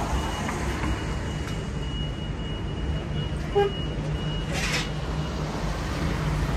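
City street traffic: vehicle engines running low and steady, with a thin high steady tone through the first part and a short hiss about four and a half seconds in.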